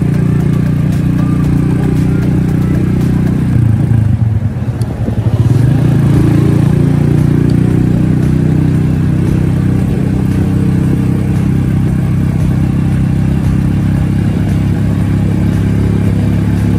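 Motorcycle engine running while riding along in traffic. Its pitch drops and picks up again about four to five seconds in, as the throttle is eased and reopened.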